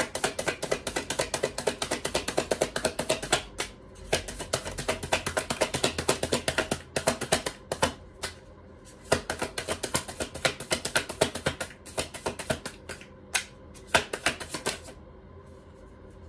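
A deck of tarot cards being shuffled overhand in the hands: a rapid run of crisp card clicks and flicks, broken by a few short pauses, that stops near the end.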